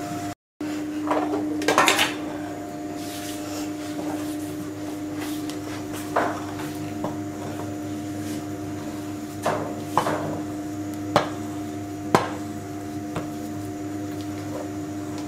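Wooden spoon stirring and pressing stiff maize porridge (kawunga) in a stainless steel pot, with scattered sharp knocks of wood against the pot's metal over a steady hum.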